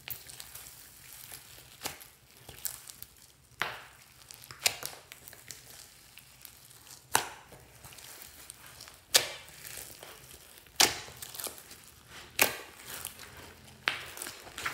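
Hands kneading and folding glossy slime packed with foam beads and sprinkles: sticky squishing and crackling, broken by sharp pops every second or two as the slime is pressed and pulled.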